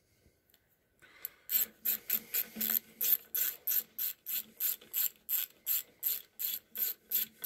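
Hand ratchet and socket running in the cylinder-head bolts on a Briggs & Stratton overhead-valve engine. The pawl clicks in quick, even bursts, about four a second, starting about a second in, as the bolts are run down to seat before torquing.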